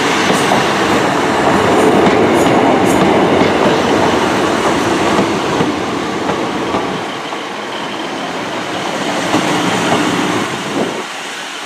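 Class 150 and Class 153 diesel multiple units running in along the platform, a steady loud rumble of engines and wheels on rails. The noise eases in the second half, and the deepest part fades out just before the end.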